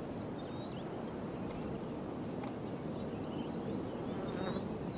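Steady outdoor nature ambience: an even low background hiss with scattered faint, short high chirps.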